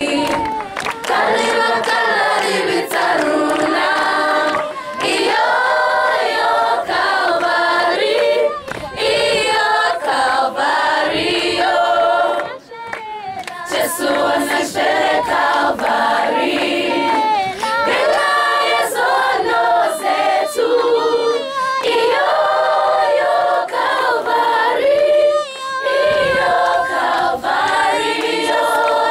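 A school choir of teenage students singing unaccompanied, several voices in harmony, with a brief pause about twelve and a half seconds in.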